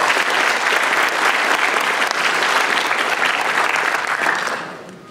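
Conference audience applauding at the end of a talk: dense clapping that dies away about four and a half seconds in.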